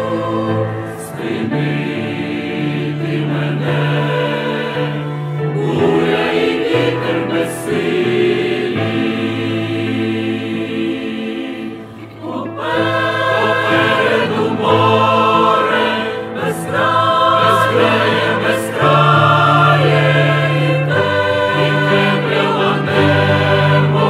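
Mixed church choir of men's and women's voices singing a hymn in long held notes over a low bass line. The singing dips briefly about halfway through, then comes back fuller and louder.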